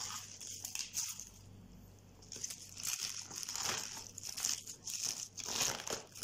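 Salted, shredded white cabbage crunching and crackling as hands press it down into a glass jar, in a run of irregular crunches that come mostly in the second half. The crunch shows the cabbage is still crisp after salting.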